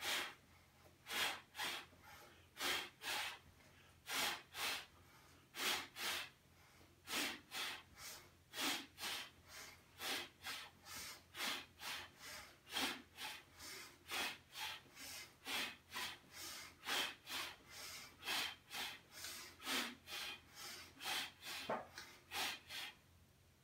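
A man's forced breathing during a Pilates single-leg stretch: short, sharp exhalations in pairs, two for each knee pull, with a quick inhale between, repeating steadily about every second and a half.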